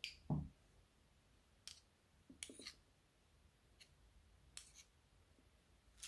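Faint, scattered clicks and taps of a metal measuring spoon and a plastic stick being worked against each other over a glass bowl, with one duller, louder thump about a third of a second in.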